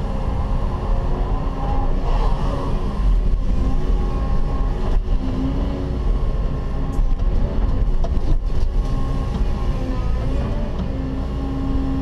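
Cat 316E hydraulic excavator heard from inside its cab, its diesel engine running at full throttle in economy mode with a steady low rumble and whining tones that shift in pitch as the boom and bucket work. A couple of short knocks about five and eight seconds in.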